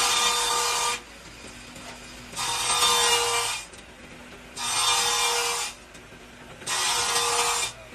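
Large table saw's circular blade cutting a thin sheet of peeled wood veneer in four short cuts about two seconds apart, each lasting about a second. Between cuts the saw keeps running more quietly.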